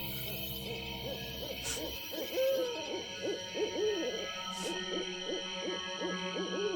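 Owls hooting: a busy run of short hoots that rise and fall in pitch, several overlapping, over a steady background of held droning tones, with a sharp click about every three seconds.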